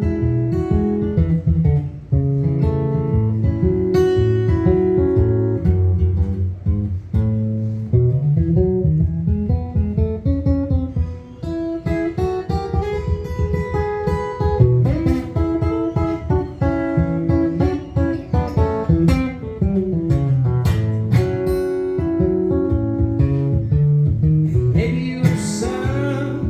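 Instrumental break in a country-style song: acoustic guitar strumming and picking chords, with a bass line underneath.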